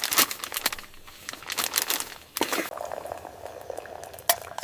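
Crinkling and crunching of packaging being handled, in irregular crackles, with a faint steady hum in the second half.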